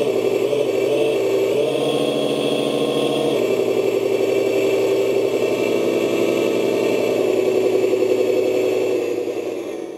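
Simulated truck engine from an electronic RC sound module, idling steadily. About two seconds in it revs up for a second or two, then drops back to idle and fades out at the end.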